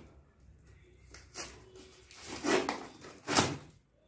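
Cardboard delivery box being torn open by hand: a few short ripping, rustling sounds, a small one and then two louder ones in the second half.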